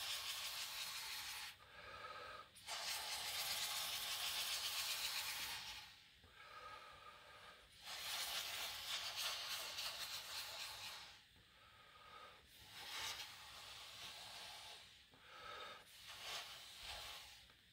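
A person breathing slowly close to the microphone: a few long, hissing breaths, each lasting a few seconds, with quieter pauses between them.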